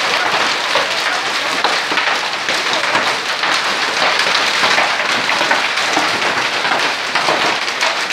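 Heavy hail and rain pelting down, a dense, steady patter of many small impacts on the ground and nearby surfaces.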